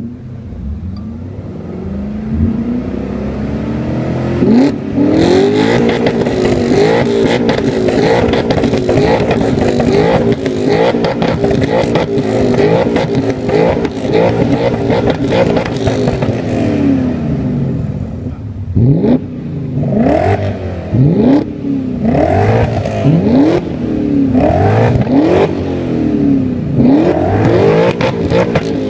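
BMW M5 E39's 4.9-litre V8 through an aftermarket sport exhaust, revved over and over: the pitch climbs and drops back repeatedly, with a run of sharp, quick throttle blips in the second half.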